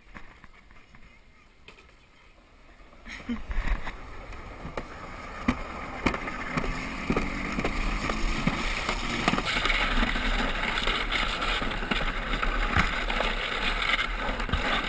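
Alpine slide sled setting off about three seconds in and running down the concrete track: a rushing noise with scattered knocks that grows steadily louder as the sled picks up speed.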